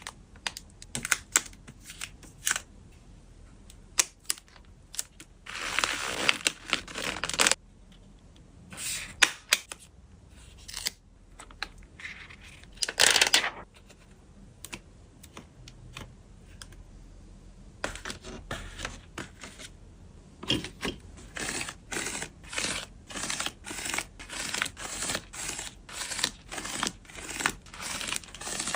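Photocard packing by hand: plastic sleeves and packing film crinkling and rustling, with small taps and clicks. Later comes a steady run of short scratchy strokes, about two a second.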